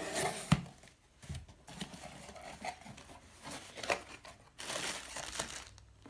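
Packing tape on a cardboard shipping box being slit and ripped open, with a sharp rip about half a second in, followed by the cardboard flaps being pulled back and plastic air-pillow packing crinkling as it is lifted out.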